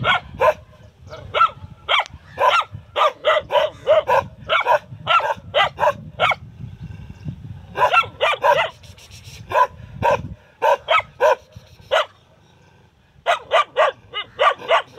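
Dog barking repeatedly in quick runs of short barks, several a second, with a brief break in the middle and a longer pause near the end before the barking resumes.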